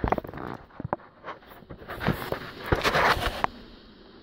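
Handling noise from a phone being picked up and moved by hand: scattered clicks and knocks, with a longer rubbing, scraping rustle about three seconds in.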